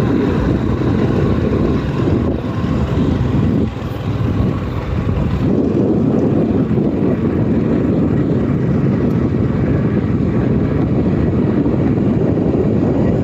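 Scooter on the move: steady, loud wind noise buffeting the microphone over the running engine, easing slightly for a moment about four seconds in.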